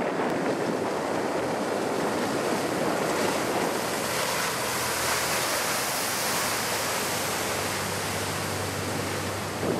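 Steady rush of water and wind from boats running at speed, with a low engine drone coming in about halfway through.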